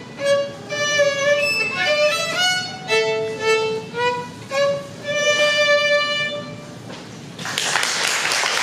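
Solo violin playing a run of separate bowed notes, closing on a long held final note about seven seconds in. Applause breaks out half a second later.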